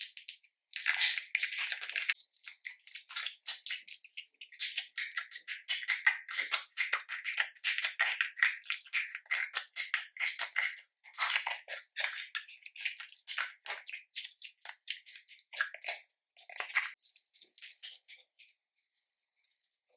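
Slime being squeezed and mixed by hand, with dense, irregular crackling and popping that thins out near the end.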